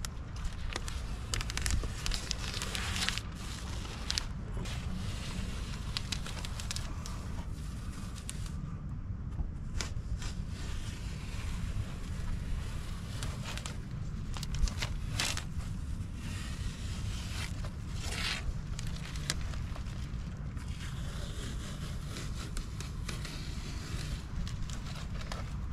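Blue painter's tape being peeled slowly off a fibreglass boat hull along the edge of a freshly sealed PVC splash rail. It crackles and tears in short spells as it cuts through the sealant bead, over a steady low rumble.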